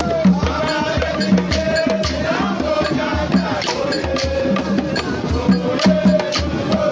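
Background music: a steady, upbeat percussion beat with pulsing bass and a wavering melody line.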